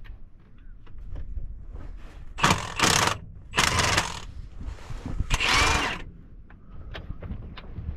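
Hand socket ratchet clicking in four short runs, turning bolts on hydraulic hose fittings, with light clinks of tools on metal in between.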